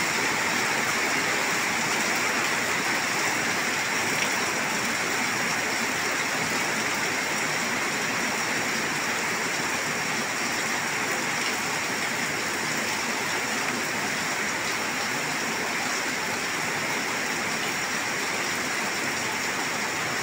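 Heavy rain falling steadily on plants and on a flooded paved yard, with a stream of runoff pouring from the roof edge and splashing into the standing water.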